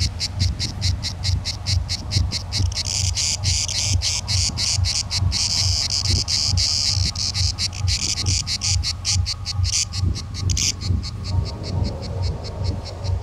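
Cicada singing: a fast, even pulsing of high-pitched clicks, about five or six a second, that runs together into a denser buzz for a few seconds in the middle and fades near the end.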